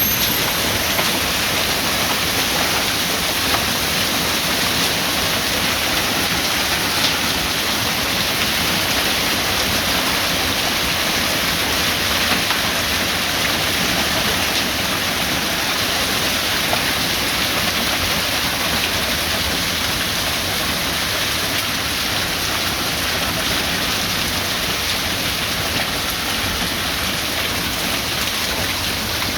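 Hail storm: hailstones and rain pelting down in a dense, steady clatter.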